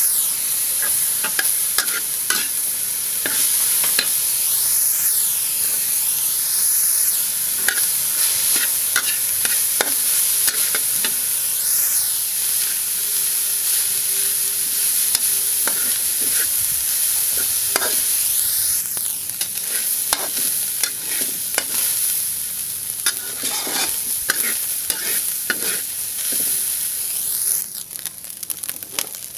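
Ground meat, onions and diced vegetables frying in a hot steel wok, stirred and scraped with a metal spatula: a steady sizzle with frequent scrapes and clicks of metal on the pan. It gets quieter near the end.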